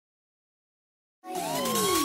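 Silence, then a little over a second in a synthesized intro sound effect starts: a hissing whoosh with sweeping electronic tones, one rising and others falling.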